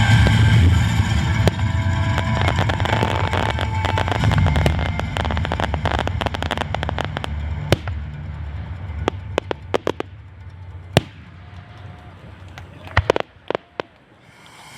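Fireworks crackling and banging, dense rapid crackles at first, then thinning to a few separate sharp cracks that die away near the end.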